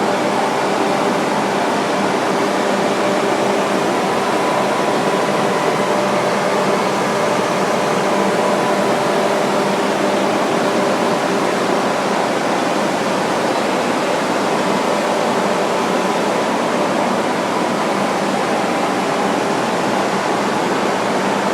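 Large smoke-extraction ventilation system running at full power to spin up an artificial tornado: a loud, steady rush of air with a faint hum of several steady tones from the fans beneath it.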